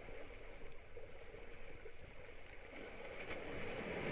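Small waves washing and breaking over shoreline rocks, swelling louder near the end.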